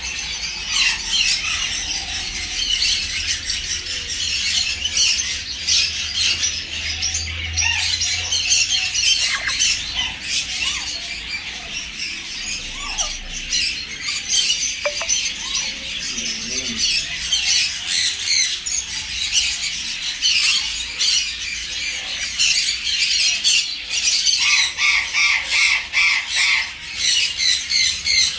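Black-capped lories squawking and chattering without pause in shrill, rapid calls, ending in a fast run of evenly repeated screeches.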